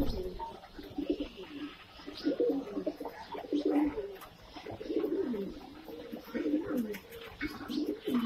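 A flock of Indian high-flyer pigeons (Saharanpuri) cooing, many low coos overlapping and swelling in clusters every second or so.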